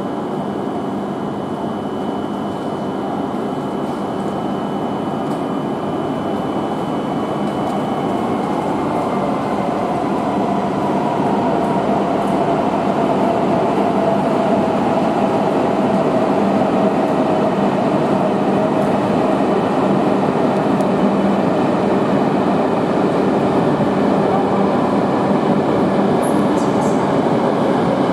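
E5-series shinkansen running along the station platform: steady rail and running noise with a faint electric motor whine, growing slowly louder.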